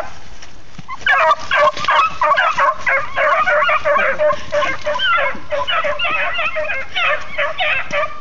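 A pack of beagles yelping and baying as they are turned loose to hunt, many voices overlapping, starting about a second in.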